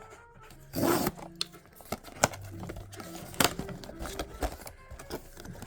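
Blind-box packaging being torn open and handled: a loud tearing rustle about a second in, then scattered sharp clicks and taps of cardboard and plastic.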